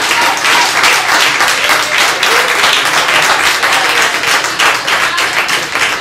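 Church congregation applauding, many hands clapping steadily: a praise given at the preacher's call.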